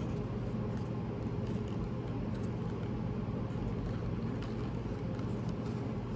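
Steady low background hum, with faint light taps and rustles of small cardboard product boxes being handled.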